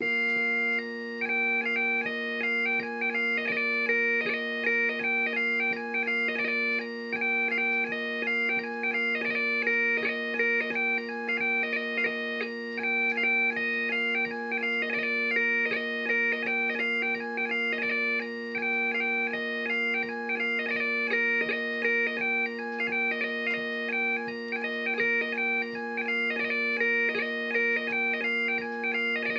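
Bagpipe playing a hornpipe: a quick chanter melody over steady drones.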